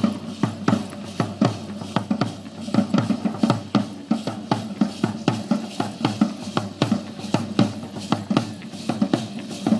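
Matachines dance drums beating a steady, driving rhythm of about three to four strokes a second.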